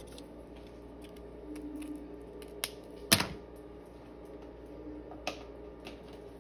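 A few sharp plastic clicks and knocks of felt-tip markers being handled: a marker cap pulled off and a marker set down on the table. The loudest click comes a little over three seconds in, another just after five seconds.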